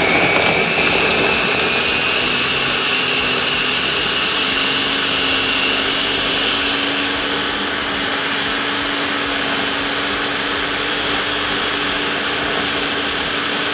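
Mitochiba electric food chopper running steadily under load as its blades grind galangal, turmeric, shallots and garlic with a little oil into a fine paste. The motor gives a steady whine whose high tone rises a little in pitch over the first few seconds.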